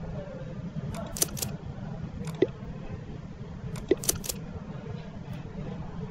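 Computer mouse clicking: a few sharp clicks in small clusters, about a second in, once near the middle, and three more close together past halfway. Under them runs a steady low hum.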